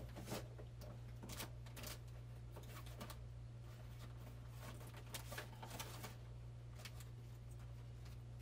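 Faint, scattered clicks and knocks of someone rummaging through things across the room, over a steady low hum.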